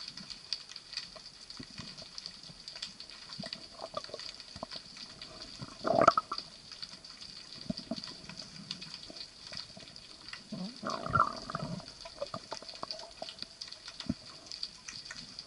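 Underwater ambience picked up through a camera's housing: a steady faint hiss with scattered small clicks and crackles. Two louder, short muffled sounds come about six seconds in and again near eleven seconds.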